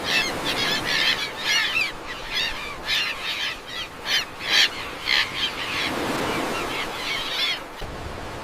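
A bird giving a rapid series of short, rough calls, two to three a second, that stop near the end.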